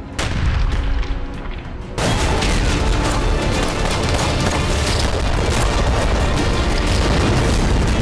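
Loud dramatic music with booming hits. It builds suddenly about two seconds in and stays dense with sharp bangs to the end.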